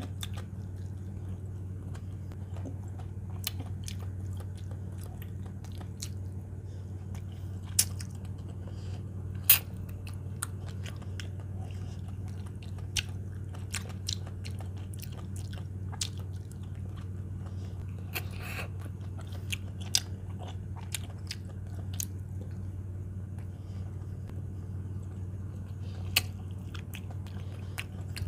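Close-miked eating: chewing and biting with scattered sharp crunchy clicks, a few of them loud, over a steady low hum.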